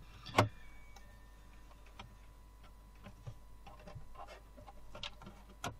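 Plastic laptop keyboard being pressed down into a Toshiba Satellite L650's chassis to seat it: a sharp click about half a second in, scattered lighter taps and clicks, and another sharp click near the end.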